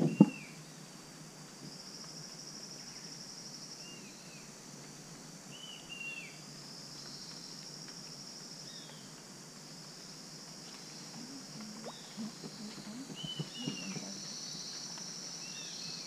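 Rainforest wildlife: short high chirps falling in pitch, often in pairs, from animals in the canopy, over long high trilling buzzes that start and stop several times. A single sharp knock right at the start.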